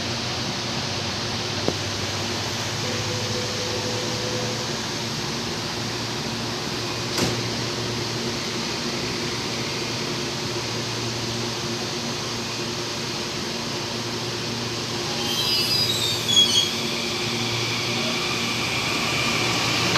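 CAF Série 7000 electric multiple unit's steady electrical hum, with a brief cluster of high-pitched tones about three quarters of the way through. The sound then grows steadily louder near the end as the train starts to pull away.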